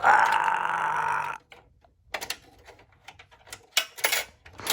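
A loud rasping noise lasting just over a second, followed by scattered light clicks and knocks of computer hardware being handled inside a workstation case.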